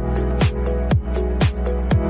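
Background electronic dance music: a steady kick-drum beat about twice a second over held chords.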